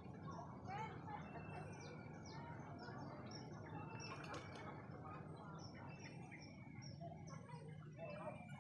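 Birds chirping, many short high notes overlapping throughout, over a faint steady low hum.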